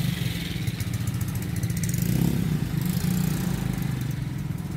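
Small motor scooter engines running as scooters ride past close by, one after another.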